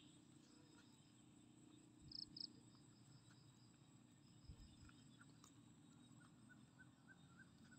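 Near silence with faint, steady insect trilling; two short, brighter chirps about two seconds in.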